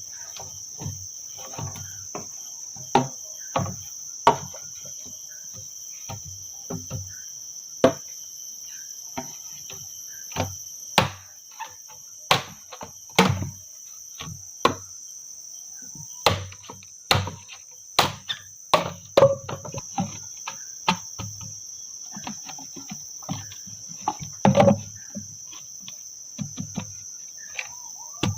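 Steady high-pitched chorus of crickets or similar insects, with irregular knocks, taps and clicks of close-by handling. A cluster of the loudest knocks comes near the end.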